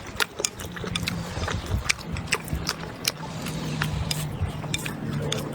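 Close-up eating sounds: chewing with frequent sharp clicks, over a low steady hum.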